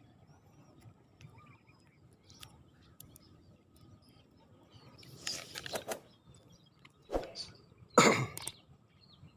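A person coughing and clearing their throat in three short bouts over the last few seconds, the last one the loudest.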